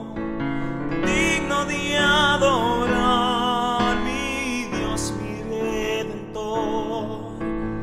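Spanish-language Christian worship song between sung lines: held chords under a melody that wavers with vibrato.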